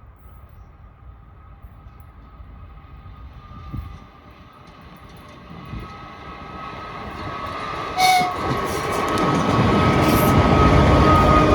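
A 2TE116 diesel locomotive approaching under power, its 5D49 diesel engine giving a steady high whistle over a low rumble. Both grow louder as it nears. A short sharp burst sounds about eight seconds in.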